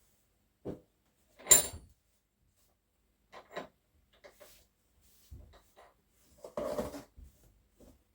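Kitchen handling noises: cookware and utensils being knocked and set down in a few separate bumps and clatters. The loudest is a sharp clank with a brief ring about a second and a half in, and there is a short rattle near the end.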